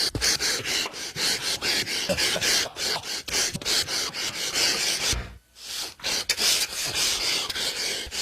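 A person gasping over and over in quick, breathy gasps, about three a second, with a short break about five seconds in.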